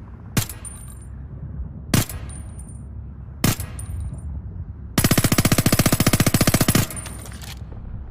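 Suppressed Glock pistol firing three single shots about a second and a half apart, each followed by a faint high ring. About five seconds in comes a rapid fully automatic burst of roughly two seconds, at about twenty shots a second, that cuts off suddenly.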